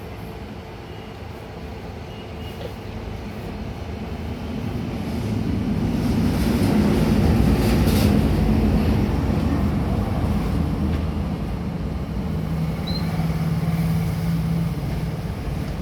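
Deep rumble like a passing train, heavy in the bass, swelling over several seconds to its loudest about seven to eight seconds in and then easing off slightly.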